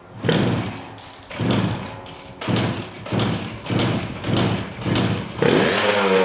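A run of heavy thumps about once a second, then near the end a motorbike engine starts with a rising note and settles into running.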